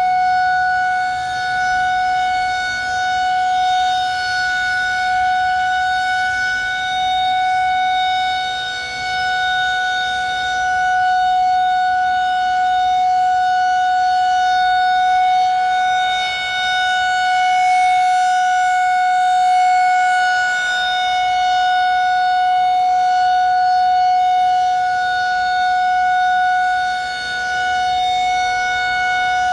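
Federal Signal 2001-130 rotating outdoor warning siren sounding its Alert signal: one loud, steady, unbroken tone. The tone swells and fades every several seconds as the siren head turns.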